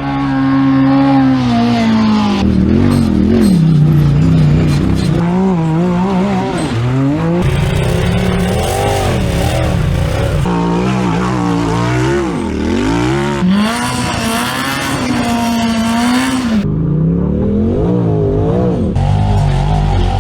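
Side-by-side UTV engine revving up and down again and again under hard off-road driving, the pitch climbing and falling with each throttle change.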